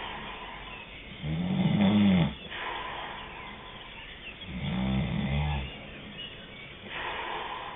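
Snoring: two low snores about three seconds apart, each lasting about a second, the first the louder, with softer breathing between them.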